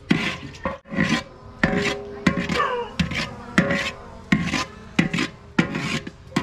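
Metal ladle scraping and stirring cooked biryani rice against the side of a large aluminium pot, with a rasping stroke about every half second.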